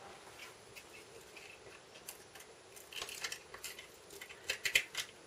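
Light handling noises of paper craft pieces and small items on a work surface: soft rustles and taps, with a quick run of sharp clicks near the end.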